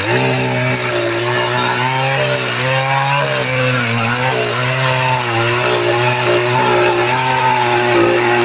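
Chainsaw revving up to full throttle and cutting into a large white oak log with a new, sharp chain and bar; the engine note holds steady with small dips as the chain loads in the wood.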